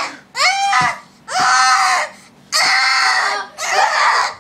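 A young girl screaming and crying: a short cry, then three longer screams in a row.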